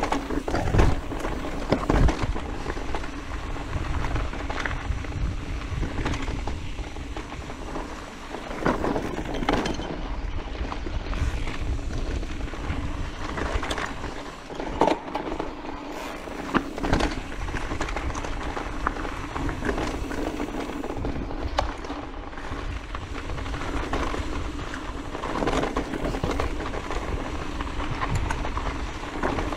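Orbea Wild FS electric mountain bike riding over rocky gravel trail: tyres crunching on loose stones, and the bike rattling and knocking as it hits rocks, with wind rumbling on the camera microphone.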